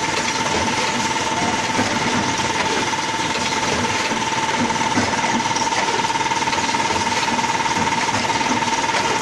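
HB-520PBF automatic double-loop wire binding machine running, which punches the paper, forms the wire and binds in one machine: a steady, fast mechanical clatter with a steady whine over it.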